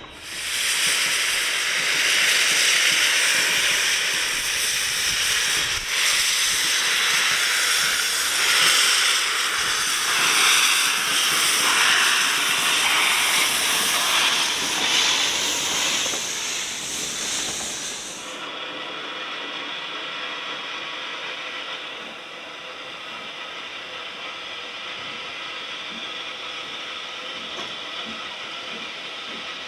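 Steam locomotive Caledonia, a Dübs-built 0-6-0 tank engine, venting steam: a loud, steady hiss that starts abruptly. About eighteen seconds in it drops sharply to a quieter, duller hiss of steam from a locomotive at a station platform.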